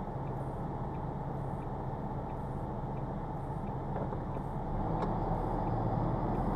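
Lorry's diesel engine running, heard from inside the cab, growing louder about four and a half seconds in as the lorry moves off.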